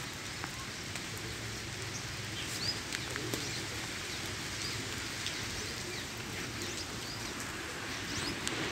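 Potato and aubergine sabzi frying in oil in a kadhai: a steady sizzling hiss with small crackles and a few short high chirps.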